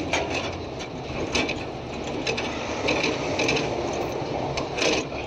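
Steel tow chain clinking and rattling in short irregular clusters as it is repositioned by hand, over the steady low rumble of a heavy truck engine running.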